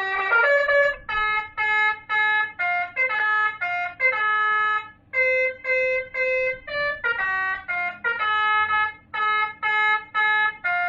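Electronic telolet Basuri horn module playing one of its tune modes through a horn speaker: a melody of short pitched horn notes, about two a second, with a brief pause about five seconds in.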